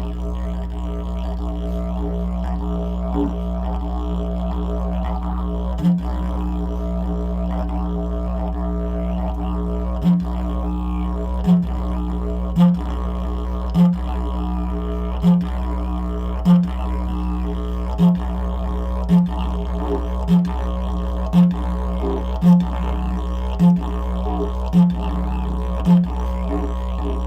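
Bamboo didgeridoo pitched in B playing a continuous low drone. From about ten seconds in, short accented pulses break in about once a second, giving it a rhythm.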